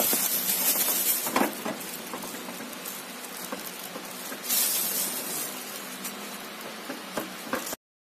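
Clear plastic wrapping around a new microwave oven crinkling and rustling as it is handled, with a few sharp knocks and a louder stretch of crackling about halfway through. The sound cuts off suddenly near the end.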